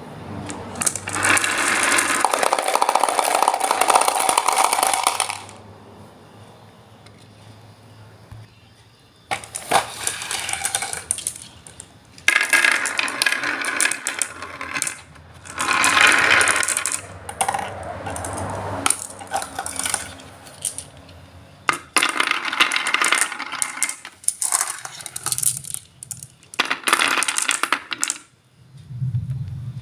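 Wood fire crackling in a fireplace: dense runs of popping and snapping lasting a few seconds each, with quieter gaps between them.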